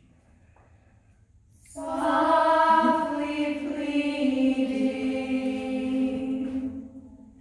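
A small group of unaccompanied voices singing, holding a sustained chord together for about five seconds after a short quiet start, then fading out near the end.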